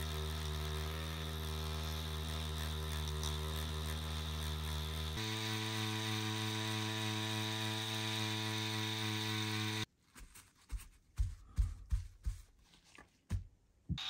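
Pen-style rotary tattoo machine running steadily with a motor hum while needling red ink into practice skin. Its hum shifts to a different pitch about five seconds in. It cuts off near ten seconds, followed by a few light knocks and taps.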